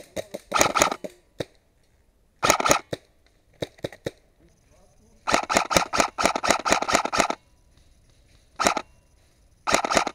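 Lancer Tactical M4 SD electric airsoft rifle (AEG) firing in bursts of rapid clicks. It fires a short burst, then a few single shots, then a long burst of about two seconds at roughly ten shots a second. One more single shot and a short burst follow near the end.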